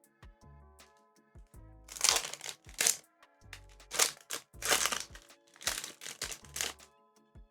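Foil trading-card booster pack crinkling in a series of sharp rustles as it is handled and torn open, over soft background music.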